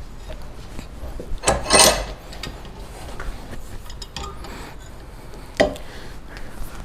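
Iron clanking and scraping as the hot iron is clamped in a blacksmith's vise and worked: a loud clatter about one and a half seconds in, smaller clicks, and one sharp clank near the end.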